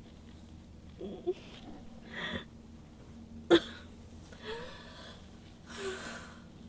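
An injured young woman's strained gasps and breaths, about five in a row, some with a voiced groan in them. A sharp knock about halfway through is the loudest sound.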